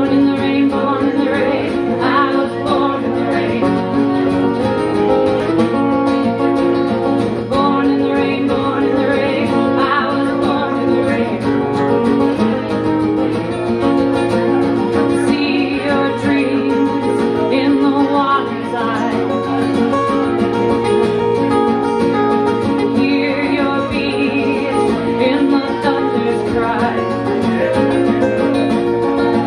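Live song: a woman singing over a strummed acoustic guitar, with an electric guitar playing alongside.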